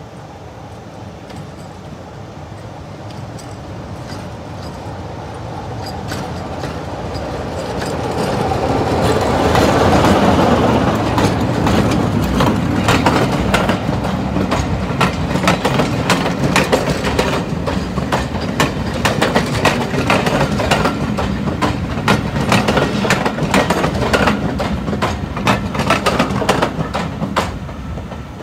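BR Class 24 diesel locomotive D5054, with its Sulzer six-cylinder engine, drawing closer and growing louder, passing at its loudest about ten seconds in. Its train of coaches then rolls by, wheels clicking rapidly and unevenly over the track at the level crossing, dying away near the end.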